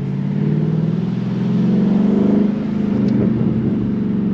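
Dodge Charger Scat Pack's 392 HEMI V8 running under way. Its note rises as the car accelerates, peaking about two and a half seconds in, then drops back to a steadier drone.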